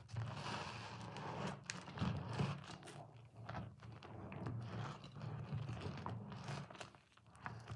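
Wet squelching and squishing of thick soap lather as hands squeeze and knead a soaked white soap bar and a sponge, with many small irregular crackles. A faint steady low hum runs underneath.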